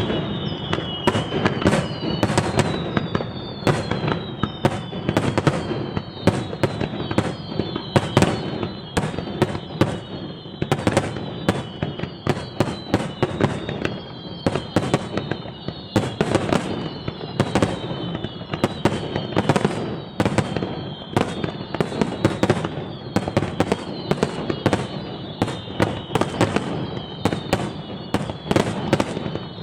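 Fireworks display in a dense barrage: rapid, overlapping bangs and crackles several a second, with high whistles that fall in pitch again and again.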